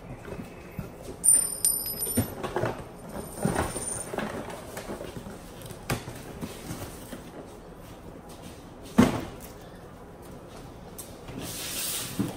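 Hands rummaging in a cardboard box: flaps and contents rustling, with scattered knocks and one sharp thump about nine seconds in. Near the end a scraping hiss as a cardboard box is handled.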